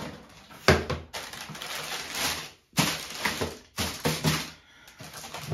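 A cardboard shoebox being handled and opened, with paper and tissue paper crinkling and rustling in irregular bursts. A sharp knock of cardboard, the loudest sound, comes about two-thirds of a second in.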